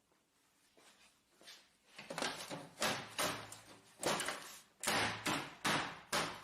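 Plastic side covers of an HP LaserJet printer being fitted back on and snapped into place: after a quiet start, a quick run of sharp plastic clacks and knocks from about two seconds in.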